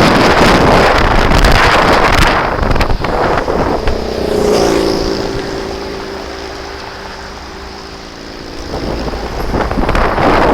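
Loud wind buffeting the microphone of a moving scooter. The wind dies away after about two seconds, leaving the scooter's engine running steadily at low speed for a few seconds. The wind noise builds again near the end as the scooter picks up speed.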